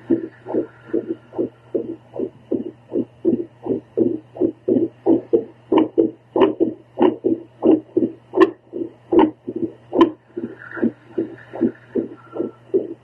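A woman's heartbeat picked up by a handheld home Doppler probe: a fast, unbroken train of pulses, roughly three a second, over a steady low hum. The beats vary in strength, and several louder, sharper beats stand out about halfway through.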